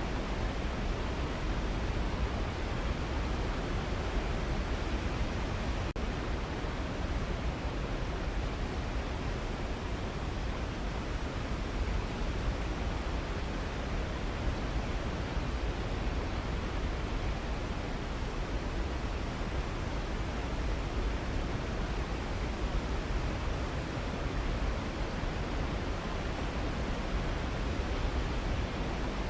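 Waterfall rushing in a steady, unbroken wash of water noise, heaviest in the low end.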